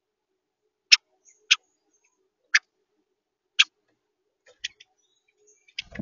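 Sharp taps of a bird's beak pecking at seed against the plastic feeder tray, heard close up: four loud clicks about a second apart, then several softer ones. Near the end comes a dull low thump as a larger bird lands on the tray.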